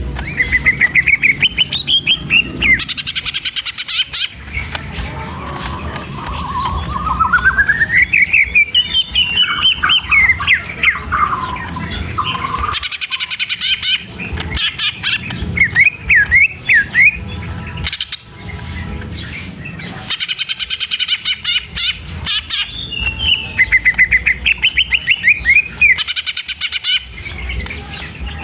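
A young bird singing in repeated phrases: fast trills of rapidly repeated notes, rising and falling whistled sweeps, and squawky chatter.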